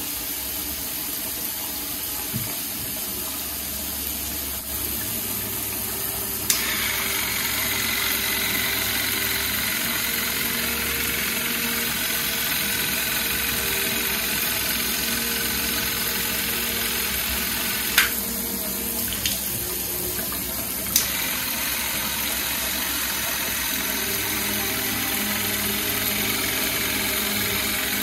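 Water running steadily, as from a tap, growing louder about six seconds in, with a few sharp knocks later on.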